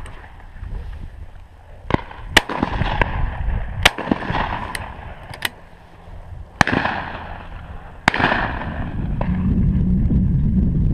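Shotguns firing on a driven pheasant shoot: about eight shots spread over several seconds, some loud and close with a short rolling echo, others sharper and fainter from further down the line.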